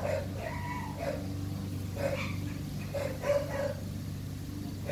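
A dog giving a string of short barks, roughly one a second, over a steady low hum.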